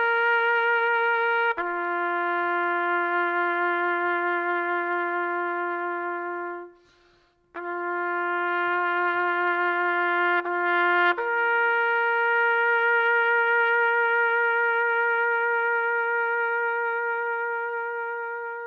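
Background music: a solo trumpet plays slow, mournful long-held notes with a slight vibrato. A lower note sounds twice with a short break between, then a higher note about 11 seconds in is held and slowly fades.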